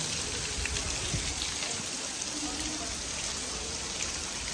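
Heavy rain falling steadily: a dense, even hiss sprinkled with many small drop impacts.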